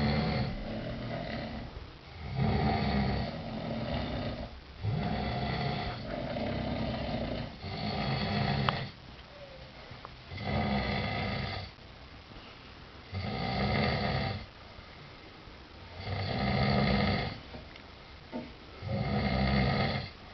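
Two men snoring in their sleep, loud rasping snores coming about every two to three seconds with quieter breaths between.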